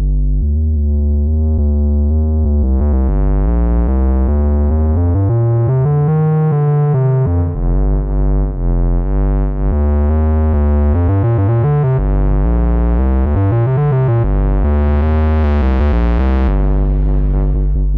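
Moog Subharmonicon analog synthesizer playing a sequence of deep bass notes. Some notes glide up and back down in pitch, and the tone brightens briefly near the end.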